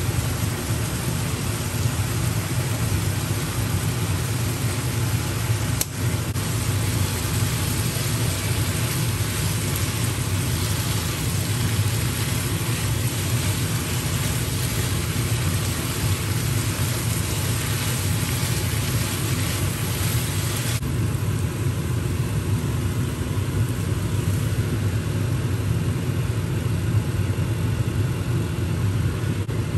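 Meat and shrimp sizzling as they are stir-fried in a pan, over a steady low mechanical hum; the sizzle drops away about 21 seconds in while the hum carries on.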